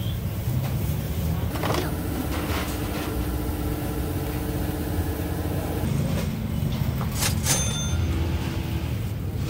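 Steady low rumble with a faint hum, like running machinery. About seven seconds in come two sharp metallic clinks with a brief ringing after them.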